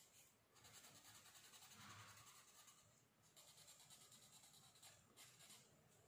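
Faint scratching of a colour pencil shading on paper, in rapid repeated strokes with a few short pauses.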